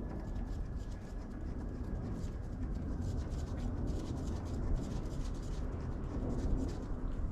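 Faint scratching and light clicking of hand work as an engine part is fitted, over a steady low rumble.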